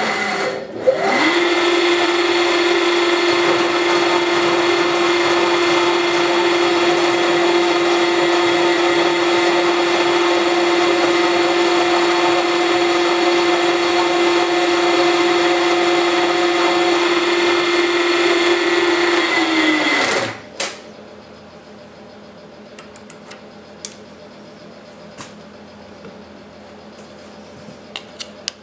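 Milling machine motor spinning up with a rising whine, running steadily for about twenty seconds, then winding down and stopping. A faint steady hum with a few light clicks remains afterwards.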